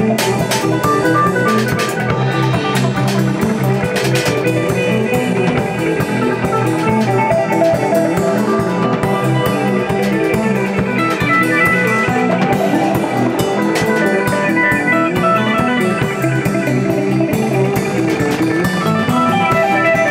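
Live improvised instrumental jam: guitar playing a steady stream of plucked notes over low bass notes and drum-kit strikes, continuous and loud.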